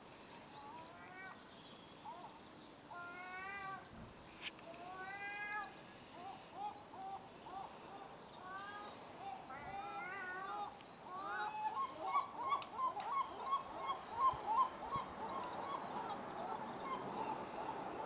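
Gulls calling from the rooftops: scattered wailing, mewing calls at first, then from about twelve seconds in a louder, fast run of calls, two or three a second.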